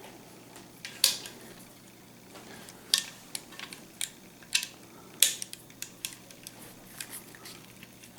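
Sharp metallic clicks and clacks of a CVA Eclipse in-line muzzleloader's bolt and action being worked by hand to pop the bolt free, coming irregularly, with the loudest about a second in and about five seconds in.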